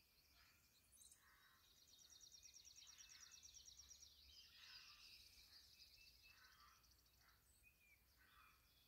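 Faint outdoor ambience with a small bird's rapid, high trill lasting a couple of seconds, starting about two seconds in, and softer short calls repeating about once a second.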